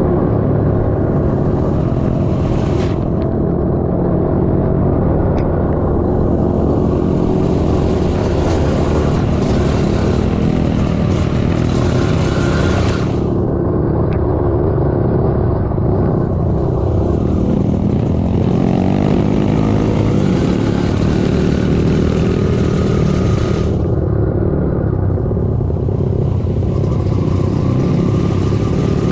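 Trail motorcycle engine running while riding, under a heavy, steady low rumble. The engine note shifts a little in pitch in the middle, and a brighter hiss comes and goes.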